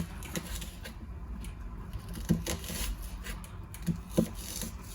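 A few light knocks and scrapes of kitchen utensils against wood during onion preparation for frying, the sharpest knocks a little past two seconds in and twice near four seconds, over a faint steady background.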